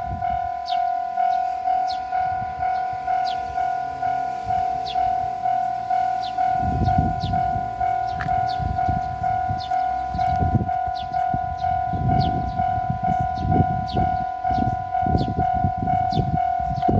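Japanese level-crossing warning bell ringing in a fast, even beat. About six and a half seconds in, a JR 313 series electric train starts rumbling past, with its wheels clattering over the rail joints.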